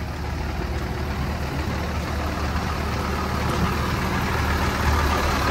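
Engine of a Kalka–Shimla narrow-gauge rail car idling at a station, a steady low hum that grows slightly louder toward the end.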